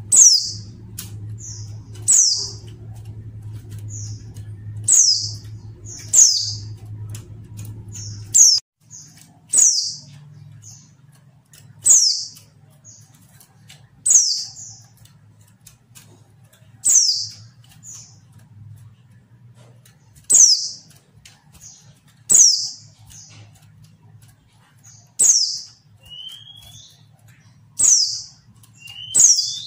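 Female white-eye (pleci) calling: sharp, high, downward-sliding notes about every two seconds, with fainter short notes between them and a couple of lower rising notes near the end. These calls are used to draw caged male white-eyes into song.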